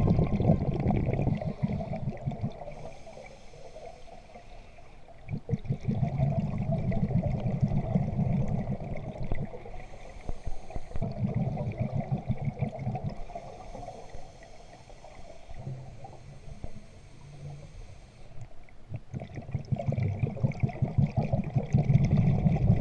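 Scuba diver breathing through a regulator underwater: each exhale is a bubbling, gurgling burst lasting a few seconds, repeating about every four to five seconds, with a fainter hiss from the regulator on each inhale in between.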